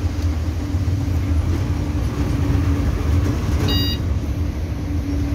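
City bus engine running steadily as the bus creeps through traffic, heard from inside the cabin as a low rumble with a steady hum. A short electronic beep sounds once, a little under 4 seconds in.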